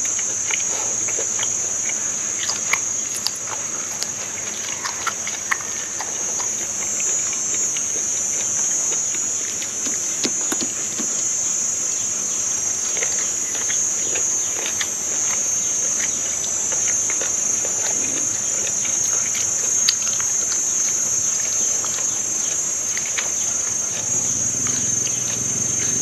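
Steady high-pitched drone of insects calling, with scattered close-up chewing and mouth clicks from someone eating.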